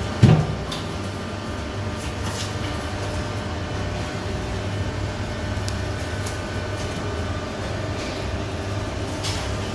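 Steady low mechanical hum of room machinery. A single short thump comes a fraction of a second in, and a few faint clicks follow later.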